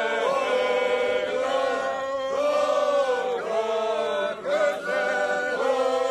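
Seto leelo folk singing: unaccompanied voices chanting a short melody in phrases of held notes, each about a second long.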